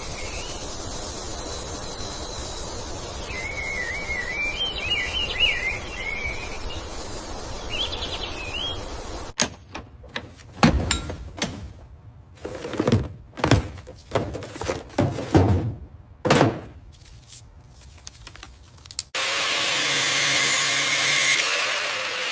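Outdoor background with birds chirping. Then comes a series of irregular knocks and clanks, and finally a loud steady hissing noise that starts suddenly near the end.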